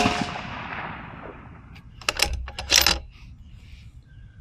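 A 6BR bolt-action rifle with a muzzle brake fires a single fouling shot: a sharp report whose echo fades over about two seconds. About two seconds in come a few sharp metallic clicks as the bolt is worked.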